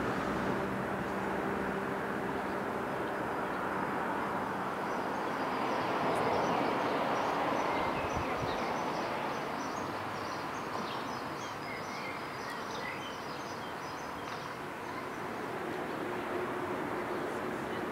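Outdoor city ambience: a steady wash of distant traffic, with birds chirping through the middle stretch.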